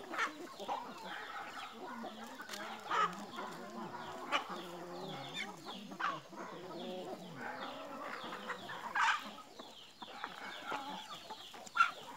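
A flock of free-range chickens clucking and calling over one another, with a few louder single calls standing out.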